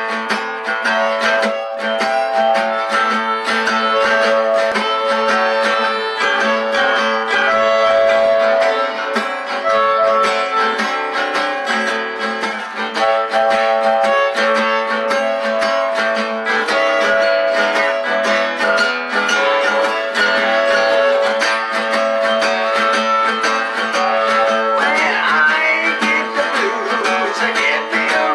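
Acoustic guitar strumming a blues rhythm with a harmonica playing long held notes over it; near the end the harmonica line bends and wavers.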